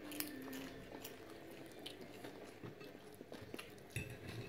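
Faint chewing and mouth sounds of a person eating, with small clicks and smacks scattered through.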